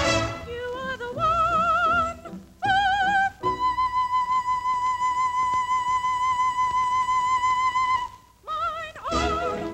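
Operatic singing from a cartoon soundtrack: a few short notes with vibrato climb in pitch, then one long high note is held for about four and a half seconds. The orchestra comes back in near the end.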